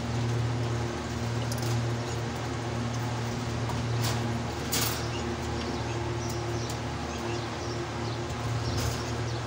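A steady low mechanical hum over a faint hiss, with a few short clicks, the clearest about four and five seconds in.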